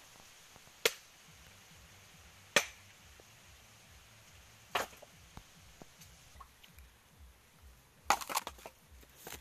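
Husked coconuts being struck and cracked open for copra: three sharp cracks about two seconds apart, then a quick run of knocks near the end.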